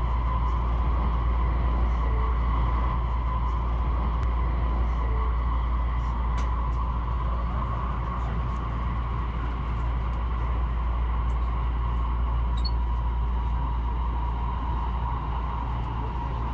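A train running steadily at speed, heard from inside the carriage: an even low rumble with a steady hum held above it.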